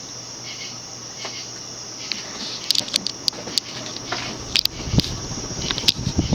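Moss Tropical Breeze (View Fan) cast-iron ceiling fan motor running at medium-low speed, a steady hum with a slight buzz. A few light clicks come in the second half.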